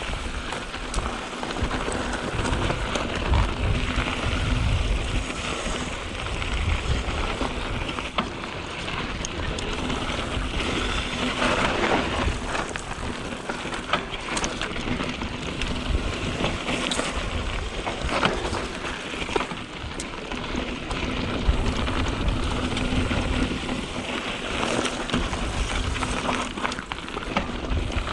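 Canyon Spectral 7 mountain bike descending a dry, loose dirt trail: tyres running over gravel and dirt, with scattered clicks and rattles from the bike over bumps and a low rumble of wind on the microphone.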